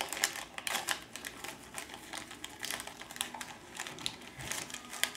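Wrapping paper crinkling and tearing in a toddler's fingers as she unwraps a small present: a run of irregular small crackles and clicks.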